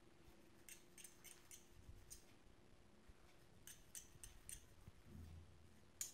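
Faint scratchy clicks of two metal forks raking through hair and across the scalp, in two short runs and one sharper click near the end.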